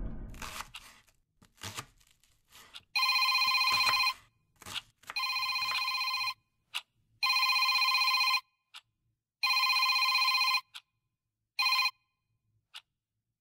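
Mobile phone ringing: an electronic ring tone of steady stacked tones in rings about a second long, repeating about every two seconds. Four full rings sound, and a fifth is cut short near the end as the call is answered.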